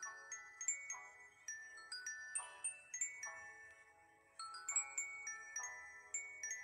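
Soft background music: a tinkling melody of bell-like struck notes in the glockenspiel or music-box range, about three notes a second, each ringing briefly and fading.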